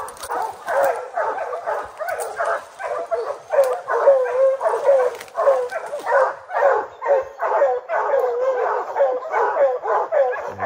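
A pack of Plott hounds barking treed at a black bear up a tree: a rapid, unbroken string of barks, about three a second. Steady tree barking like this is the sign that the dogs have the bear treed.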